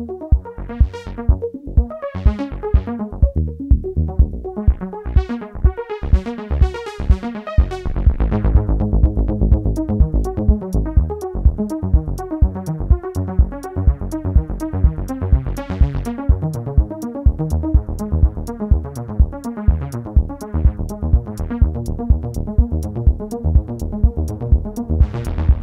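Electronic synthesizer jam from an E-mu Audity 2000 synth module mixed through a Roland M-160 rack line mixer with outboard delay and reverb effects: a steady drum-machine beat under repeating synth patterns. A heavier bass fills in about eight seconds in, and a ticking hi-hat joins at about ten seconds.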